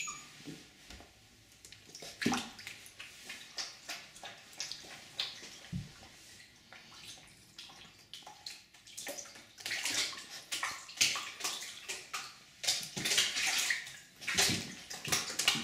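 Husky puppy's claws scrabbling and scratching on the slick sides of an empty bathtub, in quick clusters of scrapes, busiest about halfway through and again near the end.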